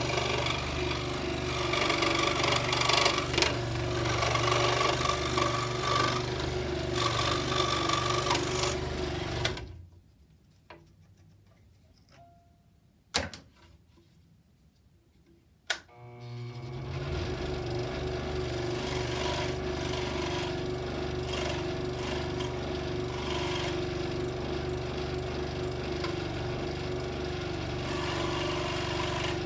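Scroll saw running and cutting the outline of a wooden letter, with a steady hum and blade chatter. About a third of the way in it stops, leaving near silence broken by two sharp clicks, then it starts again and runs steadily.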